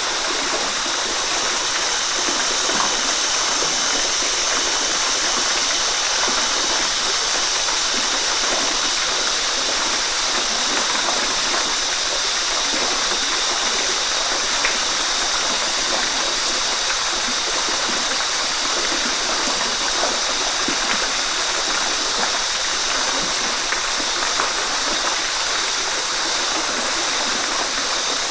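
Waterfall: a steady, unbroken rush of splashing water, bright and hissy with little deep rumble.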